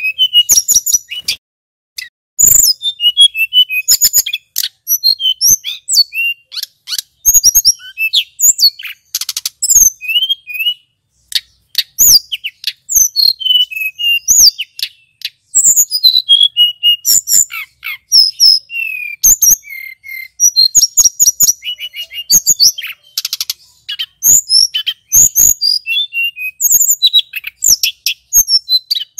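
Male hill blue flycatcher (tledekan gunung) singing its full song: a fast, varied stream of high notes and quick pitch glides, broken by short pauses.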